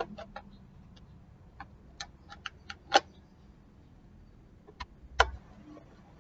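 Irregular clicks and light knocks of small electric fan parts being handled and fitted, with two sharper knocks about three and five seconds in.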